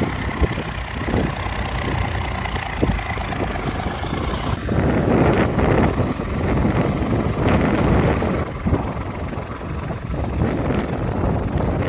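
Farm tractor diesel engine running as the tractor works through deep mud. About four and a half seconds in the sound changes abruptly, as at a cut, and wind buffeting the microphone mixes with the engine from then on.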